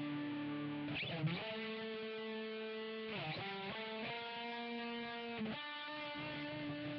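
Lead electric guitar played through a Roland GR-55 guitar synthesizer's guitar modelling, with a sticky, drawn-out tone. Long held, overdriven notes are joined by short slides and bends, about three note changes.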